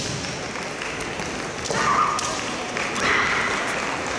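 Kendo fencers shouting kiai twice, a couple of seconds in and again about a second later, among light taps of bamboo shinai and thuds of feet on the wooden floor.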